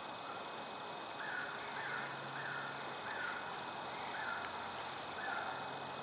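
A short, falling animal call repeated about six times, roughly every 0.7 s, over a faint steady high-pitched drone.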